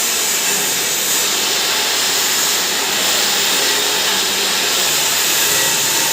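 Pulverizer grinding turmeric, running steadily with a loud, even rushing noise.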